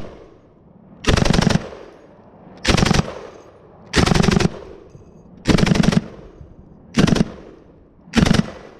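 M249 SAW-pattern 5.56 mm belt-fed light machine gun firing six short bursts of automatic fire, each about half a second of rapid shots, spaced roughly a second and a half apart. Each burst trails off in an echo.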